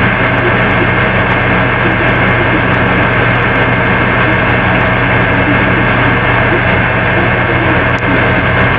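Steady, dense droning noise with a low hum under it and faint higher steady tones, unchanging in level.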